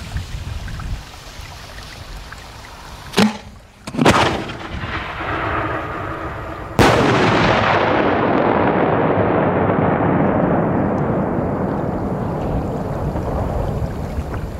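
Large 200 mm (8-inch) aerial firework shell: a sharp bang about three seconds in as the lift charge fires it from its mortar, a second bang a second later, then the loudest bang near seven seconds with a long rumbling echo that slowly fades.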